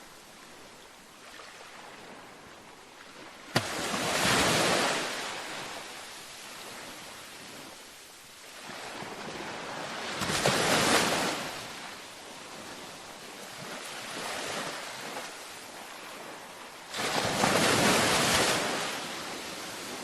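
Ocean waves breaking on a beach, three surges about six to seven seconds apart. Each rushes in and fades back into a quieter wash, and the first opens with a sharp crack.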